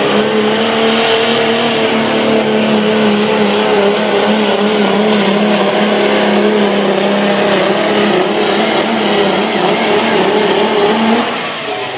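Diesel pull truck's engine running hard under load as it drags the weight sled, a loud steady drone that wavers slightly in pitch and drops off about eleven seconds in.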